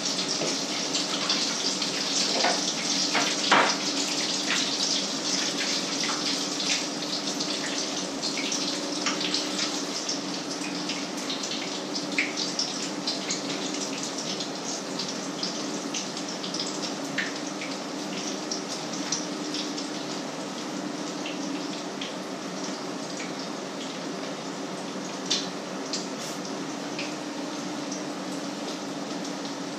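Food sizzling in hot oil in a frying pan on the stove: a steady frying hiss with small crackles and pops, a few louder pops early on, over a steady low hum.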